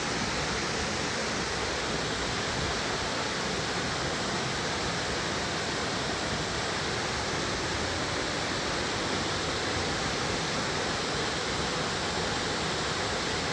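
Waterfall pouring into a pool, a steady rushing roar of falling water with no change in level.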